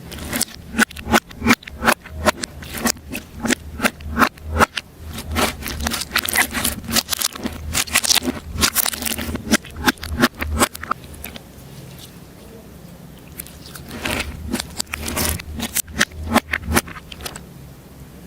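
Slime being worked by hand close to the microphone, giving rapid sharp clicks and crackles. The clicking runs for about ten seconds, pauses, then comes again in a shorter run near the end.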